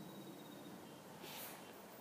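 Near silence: faint outdoor background with a short, soft hiss about a second and a half in.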